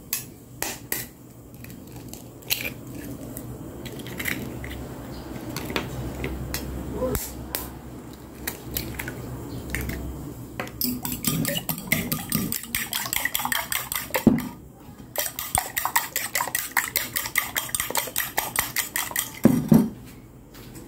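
Eggs being cracked and beaten in a ceramic bowl: scattered taps and knocks of shell and utensil on the bowl for about ten seconds, then rapid, even clicking of a metal utensil against the bowl as the eggs are whisked, pausing once briefly partway through.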